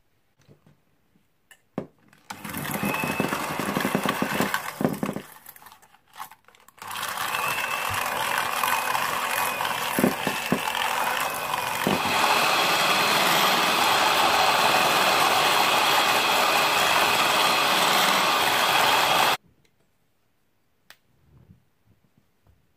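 Electric hand mixer beating butter and xylitol in a stainless steel bowl: a short run of about three seconds, a brief pause, then a longer steady run that gets louder about halfway through and cuts off suddenly.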